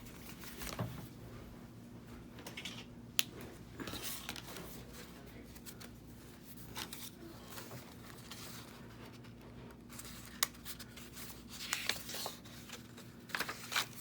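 Paper and card being handled at a craft table: soft rustling and scraping, with a few sharp clicks and small taps scattered through.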